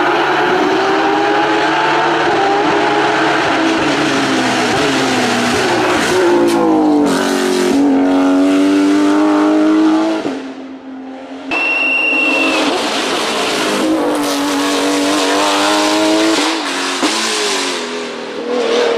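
Race car engine accelerating hard up a hill-climb course, its pitch climbing and dropping back at each gear change as the car passes. The engine sound drops out briefly about halfway through, and a short high beep follows it.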